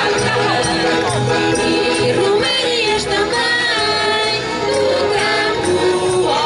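A choir of men's and women's voices singing a song together.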